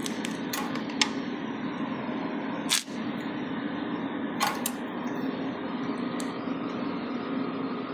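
Resanta SAI-250K welding inverter running, its cooling fan giving a steady hum, with a few sharp clicks scattered through, the loudest about a second in and near three seconds.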